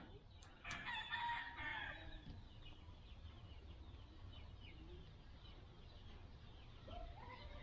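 Faint bird calls: one call lasting about two seconds, starting about half a second in, and a short rising call near the end.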